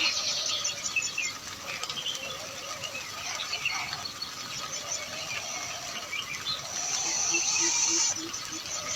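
Several birds chirping and calling, with many short high calls. About seven seconds in, a high buzzing trill joins them, along with a low call pulsing about five times a second.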